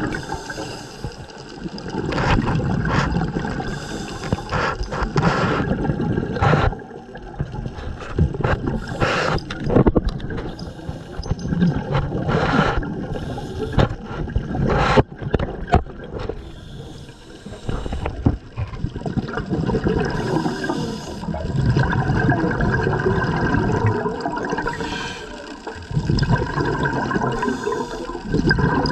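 Underwater scuba breathing: exhaled bubbles gurgling and rumbling past the camera in surges every few seconds, with quieter gaps between breaths and scattered sharp clicks.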